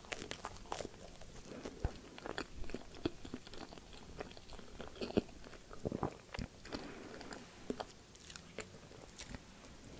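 A person chewing and biting a strawberry and whipped-cream sandwich close to the microphone: irregular soft bites and short wet mouth clicks, the loudest about five seconds in.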